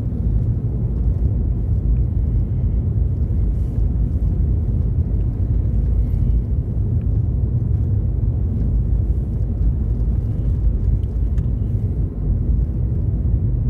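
Steady low rumble of a moving vehicle heard from inside the cabin: engine and tyre noise on a snow-covered road.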